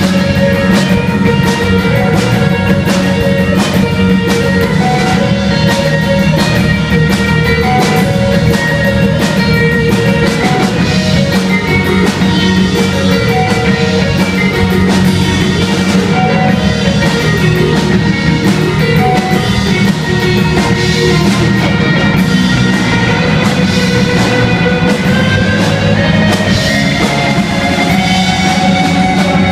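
Live rock band playing loud and steady: distorted electric guitars over a drum kit with constant cymbals. Near the end, held notes slide upward in pitch.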